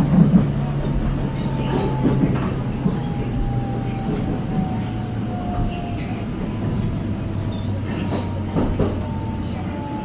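Electric commuter train (Seoul Subway Line 1) heard from inside the car: steady running rumble and hum, with a thin motor whine that slowly falls in pitch as the train slows into a station, and scattered clicks of the wheels over rail joints.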